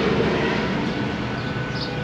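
Steady low rumble and hiss with a faint hum, unbroken throughout.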